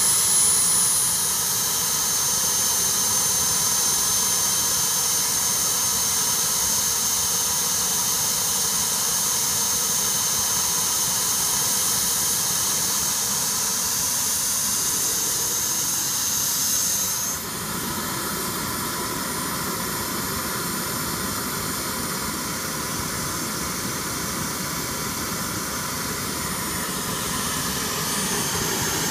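JetCat P160 model gas-turbine engine idling on the ground, with a steady rushing sound and a high whine. The whine drops in pitch over the first few seconds as the engine settles to idle, then holds steady. About two-thirds through, the whine fades and the sound drops a little in level, then it rises slightly in pitch and level near the end.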